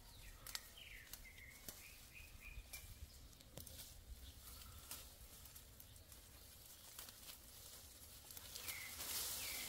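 Faint outdoor quiet with a bird calling a few times in short whistled notes, over light clicks and rustles of leaves and twigs as berries are picked from the bush.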